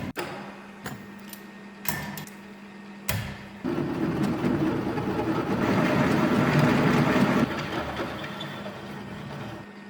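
Electric drill running steadily, with a few knocks in the first three seconds, then a 24 mm bit cutting into a zinc-plated steel nut from about three and a half seconds in, boring out its threads; the cutting is loudest around the middle and eases off near the end.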